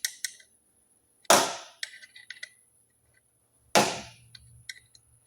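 Two sharp knocks about two and a half seconds apart, each ringing off briefly, amid light clicks and taps of hand tools during turbocharger disassembly.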